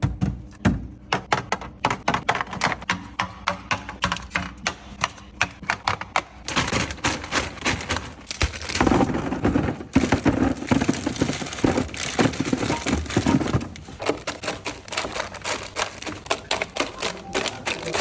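Quick clicks, taps and knocks of food containers and packages being handled and set into a refrigerator. From about six seconds to about thirteen seconds the handling turns into a thicker run of rustling and clatter.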